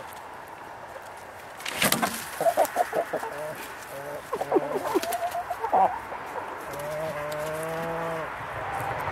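Hens clucking in a run of short calls, after a brief rustling burst about two seconds in; near the end one hen gives a long, drawn-out call lasting over a second.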